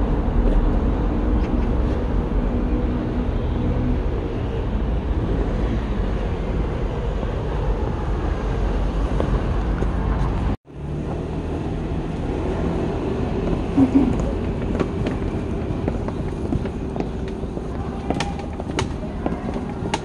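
Outdoor city street ambience: a steady low rumble with distant traffic, cut off suddenly about halfway through and replaced by lighter street noise with a few faint voices and clicks near the end.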